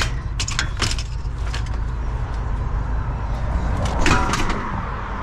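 Van engine idling steadily, with a few sharp knocks of scrap metal being handled and a louder clatter about four seconds in.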